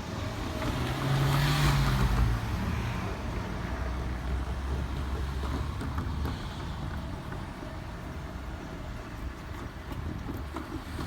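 A vehicle passes by, loudest about one and a half to two seconds in, with a low engine tone that falls slightly as it goes. A steady low hum follows, with wind on the microphone.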